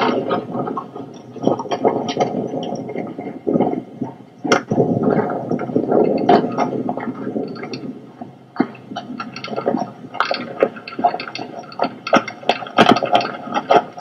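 Footsteps crunching and scuffing on rocky, gravelly ground, many short irregular crunches over a continuous rushing noise.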